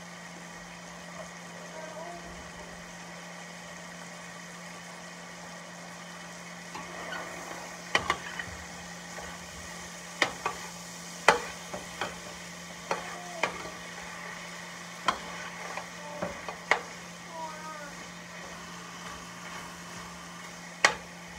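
Vegetables sizzling in a stainless steel pan on high heat, with a metal spoon stirring and clinking against the pan from about eight seconds in, a dozen or so sharp clinks. A steady low hum runs underneath.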